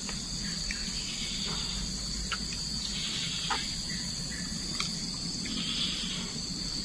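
Steady high-pitched chorus of insects, with a few faint short clicks over it.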